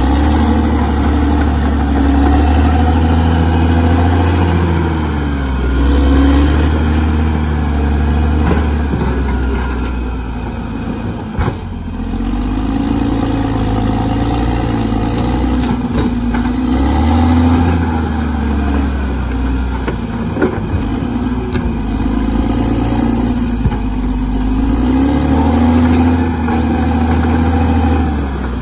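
Bulldozer's diesel engine working hard, its pitch rising and falling again and again as it revs up and eases off under load, over a heavy low rumble, with a few sharp knocks.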